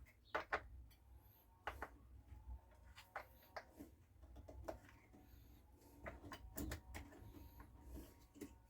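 Faint, scattered clicks and light knocks of small parts and hand tools being handled during fiddly work on a chainsaw carburettor, over a low background hum.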